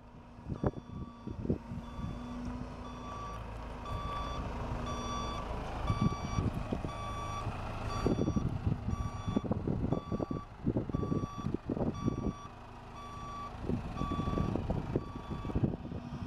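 Reversing alarm on a Storti Labrador self-propelled mixer feeder, beeping steadily about twice a second as the machine moves in reverse, over its engine running. Irregular low gusts of wind on the microphone.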